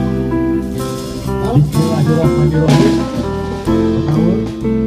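Music with a plucked guitar melody over drums.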